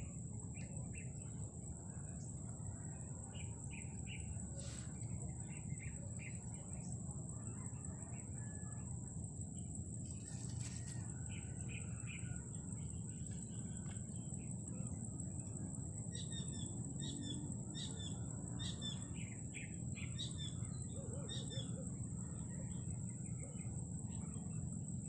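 Birds chirping in short, repeated calls, more busily in the second half, over a steady high-pitched whine and a constant low outdoor rumble.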